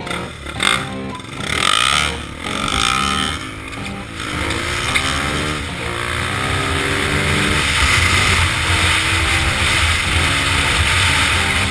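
Single-cylinder four-stroke off-road engines, a dirt bike and a quad, running and revving on a dirt trail, their pitch rising and falling as the throttle opens and closes. A steady rush of noise builds after the first few seconds as they get under way.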